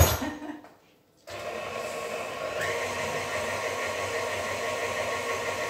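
A sharp knock, then about a second later an electric stand mixer starts up and runs steadily, beating cake batter; its pitch steps up about two and a half seconds in.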